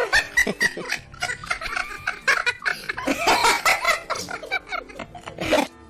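A person laughing hard in short, choppy bursts, breaking off suddenly near the end.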